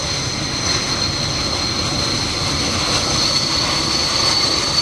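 Mitsubishi T-2 jet trainers taxiing close by. Their twin Adour turbofan engines give a steady high whine over a continuous rumble.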